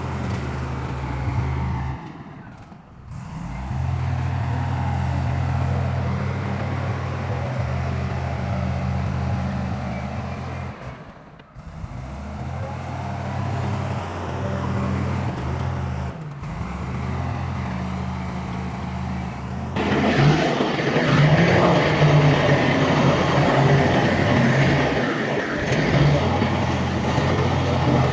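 Heavy diesel earthmoving machinery running steadily, with a low engine hum. The sound drops out briefly a few times, and about two-thirds of the way through it becomes louder and rougher.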